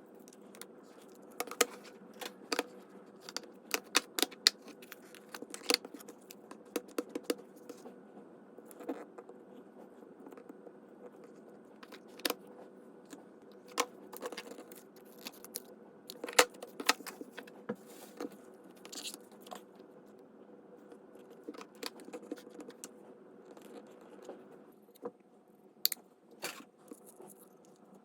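Paper and craft supplies being handled on a desk: irregular light taps, clicks and scrapes, over a faint steady hum.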